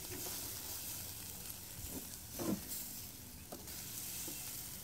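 Pork sizzling on a wire grill over charcoal, a steady crackling hiss as the sugary marinade chars on the meat. A brief, slightly louder sound about two and a half seconds in.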